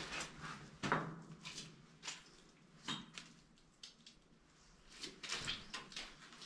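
Footsteps scuffing and crunching on grit and debris over a concrete floor: irregular crunches and scrapes, with a quieter spell in the middle.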